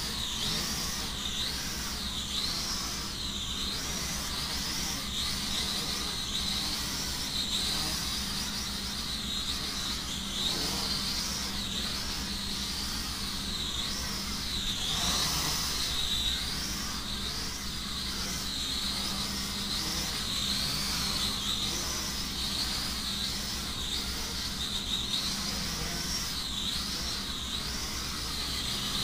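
Small quadcopter's motors and propellers whining, the pitch rising and falling continually as the throttle changes in flight, over a steady low hum.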